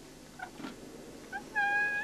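A pet animal's high whine, held on one steady pitch for about half a second near the end, after a couple of brief faint squeaks.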